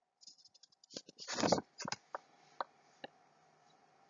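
A quick flurry of small clicks and a brief rustle about a second in, then three single clicks spaced about half a second apart, over a faint steady hum.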